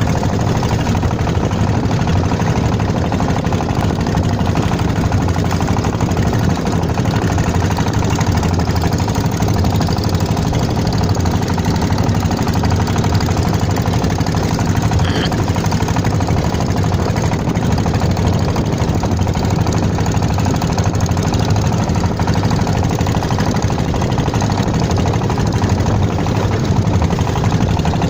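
Engine of a klotok (small wooden motorboat) running steadily at an even speed, with a rapid knocking beat.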